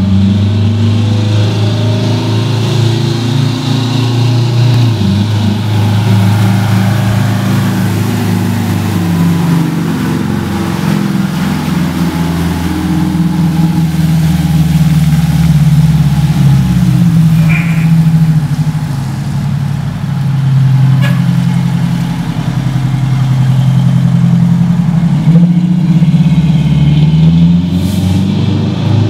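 Detroit Diesel two-stroke engine of a 1997 Simon-Duplex ladder truck running under load as the truck drives slowly past, its pitch rising and falling several times.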